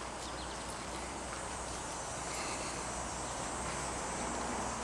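Steady outdoor background hiss with faint insects chirring in the background.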